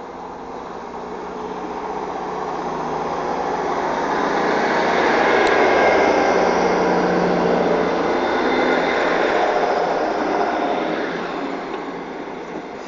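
Class 158 diesel multiple unit pulling out along the platform: its diesel engines and running noise grow louder as the carriages pass, peaking about six seconds in, then fade as it draws away.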